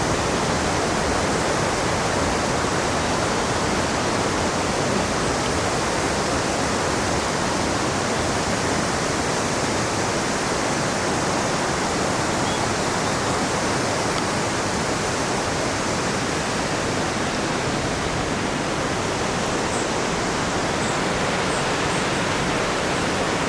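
Steady, unbroken rush of falling water from Hagoromo Falls, a tall cascading waterfall.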